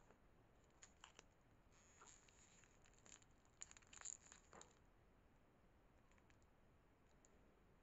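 Faint crinkling of a lollipop's wrapper as fingers handle and pick at it, a couple of small crackles about a second in and a denser run of crackles between about two and five seconds in.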